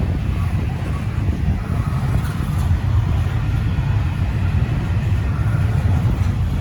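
Slow-moving intermodal freight train rolling past, a steady low rumble from the cars on the rails, with wind buffeting the microphone.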